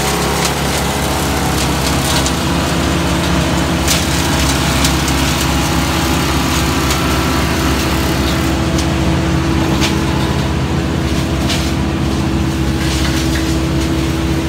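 Tow-behind brush chipper's engine running steadily at working speed, with a few sharp cracks as brush goes through.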